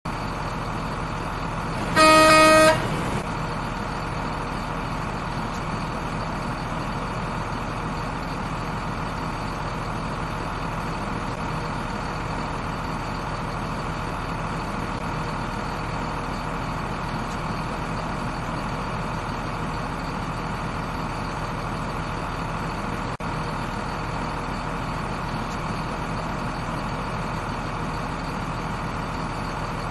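Steady truck engine running sound, laid over the toy play as a sound effect, with one loud horn toot lasting under a second about two seconds in. The engine sound cuts out for a moment about 23 seconds in.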